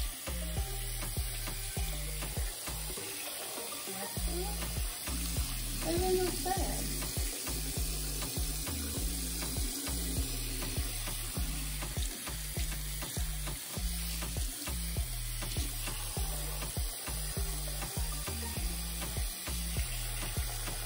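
Bathroom faucet running steadily into the sink, the stream splashing through a wet lace wig as it is rinsed. Background music with a steady bass line plays throughout.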